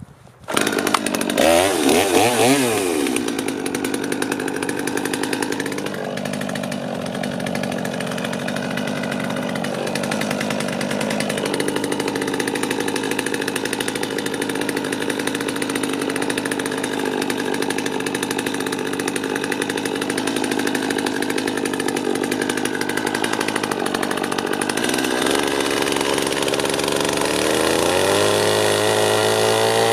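A power tool sanding wood. It starts up about half a second in and runs continuously. Its pitch sweeps up and down just after it starts and again near the end, and its tone shifts a few times as it works.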